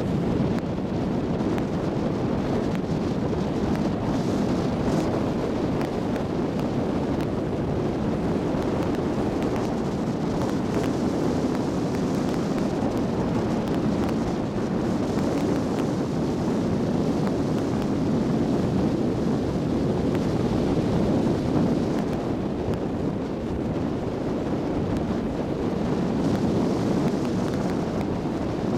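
Steady wind buffeting the microphone aboard a moving tour boat, mixed with the rush of the boat's engine and the water.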